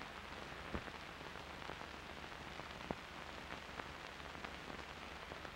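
Faint steady hiss and crackle of an old optical film soundtrack, with scattered clicks and pops, the sharpest under a second in and another about three seconds in.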